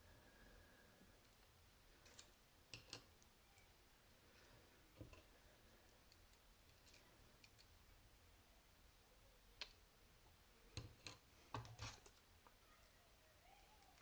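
Faint, scattered clicks and light taps of small metal lock parts being handled: the discs and spacers of a disassembled Abloy disc-detainer padlock core. There is a cluster of several clicks near the end.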